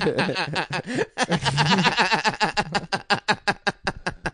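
Men laughing hard after a joke, in quick breathy pulses several times a second.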